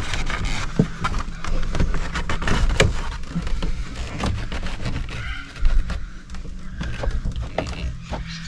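Plastic interior cover of a scupper roof vent being pushed and worked into the cut ceiling opening: scattered clicks, taps and scraping of plastic, with one sharper knock about five and a half seconds in.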